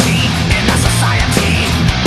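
Loud heavy rock music with guitar and a steady drum beat.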